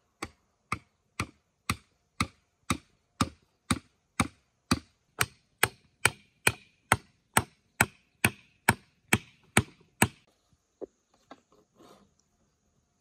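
Steady chopping on bamboo or wood, about two sharp strikes a second, stopping about ten seconds in.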